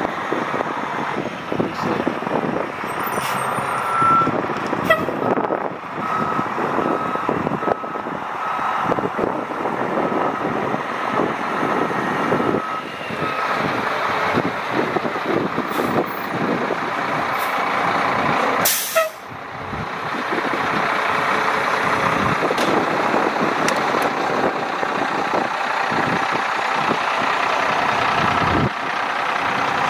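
Pierce Saber pumper fire truck's Detroit Diesel engine idling steadily. For several seconds early on, a repeated electronic beep sounds. Near two-thirds of the way through comes a single sharp burst of air hiss from the truck's air system.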